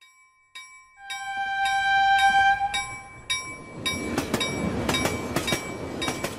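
Railroad sound effect. About a second in, a crossing bell starts ringing two or three times a second and a train horn sounds for under two seconds. A passing train's rumble then builds under the bell.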